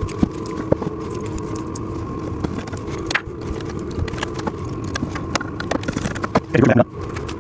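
Scattered light clicks and taps of small metal furniture hardware, cam-lock fasteners, being handled and fitted into wooden panels, over a steady background hum.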